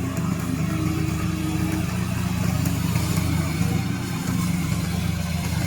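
Remote-control slope mower's engine running steadily at an even pitch.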